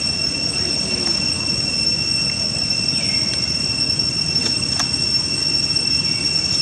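A steady high-pitched whine held on one unchanging pitch over a constant background hiss, with two faint clicks a little after the middle.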